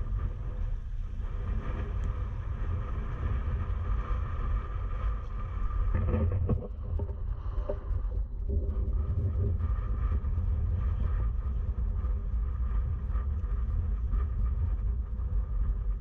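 Strong wind rumbling on the microphone over water washing against a sea kayak that is drifting downwind without paddling, with one louder surge about six seconds in.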